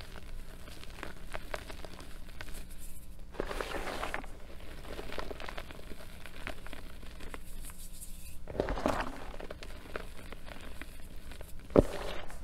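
Reformed gym chalk crumbled and squeezed in bare hands over a bowl of chalk powder: many small crunches and crackles, with two longer bursts of powdery rustling. One sharp, louder crunch comes near the end.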